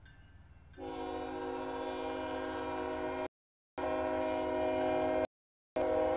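CSX freight locomotive horn sounding a steady multi-note chord for the grade crossing, starting about a second in over a low train rumble. The sound cuts out completely twice for about half a second where the audio drops out.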